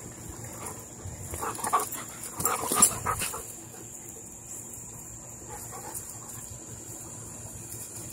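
Two Malinois-type dogs wrestling in play, giving a cluster of short play vocalizations (yips and barks) between about one and a half and three and a half seconds in, the loudest near three seconds.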